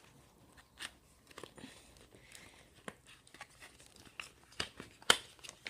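Small cardboard speedcube box being handled and opened by hand: scattered light clicks, taps and crinkles, with one sharper click about five seconds in.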